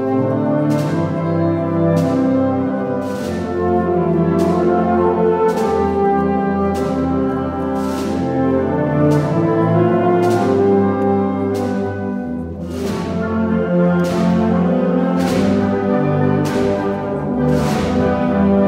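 Wind band of clarinets and brass playing a slow march in full chords, with cymbal crashes and bass drum marking a steady beat about once a second. The sound eases briefly about twelve seconds in, then comes back at full strength.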